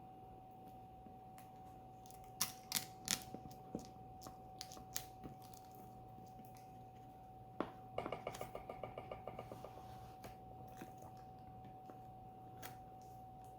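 Faint handling of a Blu-ray box set's packaging during unboxing: scattered sharp clicks and taps, then a quick rattling run of ticks about eight seconds in, over a steady high hum.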